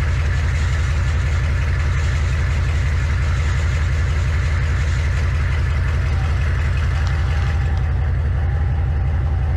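M998 Humvee engine idling steadily with an even low throb while it warms up.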